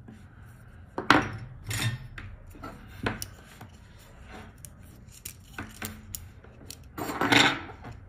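Tools and small hard parts being handled on a workbench: a few sharp clicks and knocks, then a longer rattling clatter near the end, the loudest moment.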